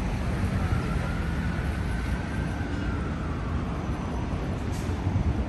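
Steady city traffic rumble, with a faint whine that rises and then falls in pitch through the middle.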